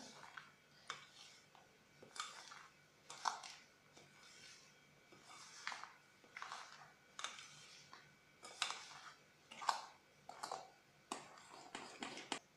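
Metal spoon scraping and stirring a thick, grainy semolina batter in a glass bowl, in short strokes about once a second that come closer together near the end.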